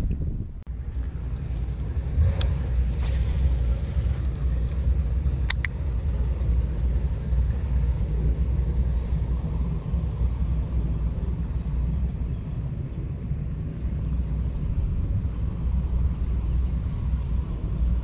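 Wind buffeting the microphone: a steady low rumble. Two sharp clicks come a few seconds in, and a bird gives a short high trill about six seconds in and again at the end.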